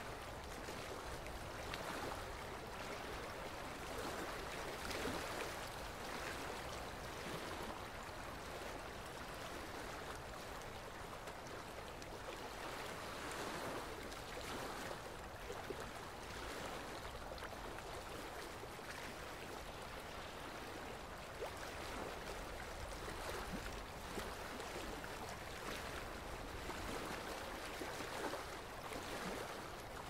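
Small, gentle waves lapping on a sandy shore: a steady wash of water that swells softly every few seconds.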